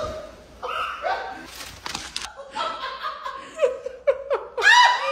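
A man laughing in short, breathy bursts, loudest near the end, with a couple of short knocks about two seconds in.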